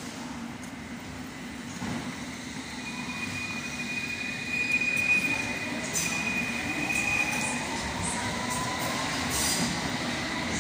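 London Underground S-stock train pulling out and accelerating away, its traction motors whining steadily upward in pitch over a rolling rumble. A high steady squeal is heard for a few seconds in the middle, and a few sharp clicks come near the middle and towards the end.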